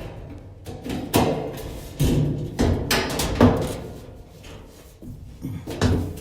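Irregular knocks and clunks of dryer parts being handled and fitted back into place during reassembly, each with a short ring.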